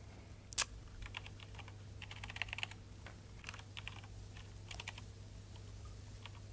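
Typing on a laptop keyboard in short irregular bursts of key clicks, with one sharper click about half a second in.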